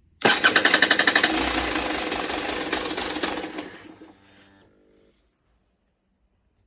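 KTM TPI two-stroke dirt bike engine being cranked over, failing to start. It begins suddenly with fast, even pulses of about eight a second, then runs on more steadily and fades out about four seconds in.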